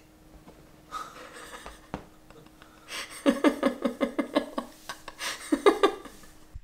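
A woman laughing softly in quick breathy bursts, in two bouts starting about three seconds in, after a quieter breathy chuckle about a second in.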